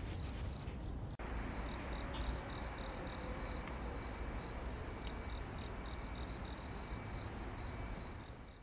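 Crickets chirping in a steady, even rhythm over a low background hiss, fading out at the end.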